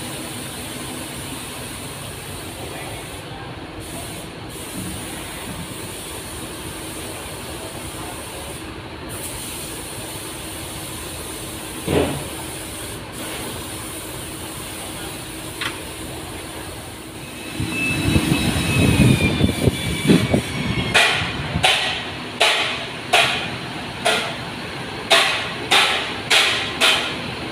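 Coachbuilding workshop noise: a steady background hum with a single knock, then, from about two-thirds of the way in, a low rumble and a run of sharp hissing strikes, one or two a second.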